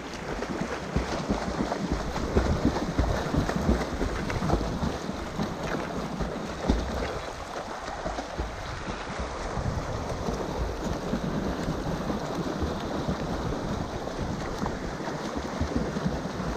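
Water splashing and sloshing around a stand-up paddleboard as wetsuited swimmers swim freestyle close alongside, with wind rumbling on the microphone. One sharp knock near the middle.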